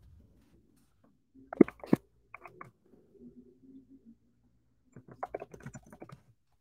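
Typing on a computer keyboard. A few sharp keystrokes come about a second and a half in, then a quicker run of keys near the end.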